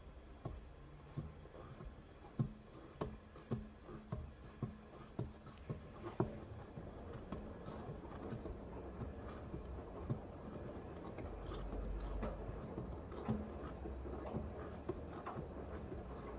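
Tyre and road noise inside a moving car, with a steady low hum that swells into a louder roar in the second half: the hum from an out-of-round tyre near 50 km/h, not a bad wheel bearing. A regular tick about twice a second runs over it for the first six seconds.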